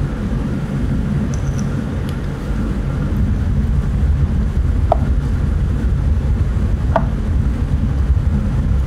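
Steady low rumble of a restaurant kitchen's ventilation, with two short sharp clicks about five and seven seconds in.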